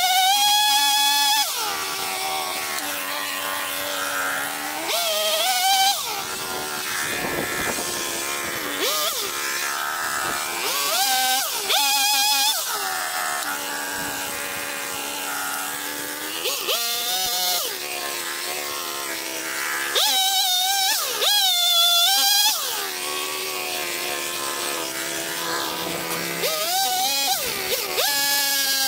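Two-stroke chainsaw revving up in bursts of a second or two as it cuts through logs, dropping back between cuts to a steady high idle. Its throttle sets the idle so fast that the chain keeps turning.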